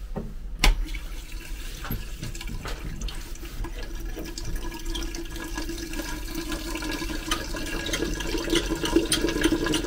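Water rushing through a railway passenger car's water supply pipework after a closed shut-off valve is opened: a steady hiss with a low hum that grows louder toward the end. A sharp click about half a second in.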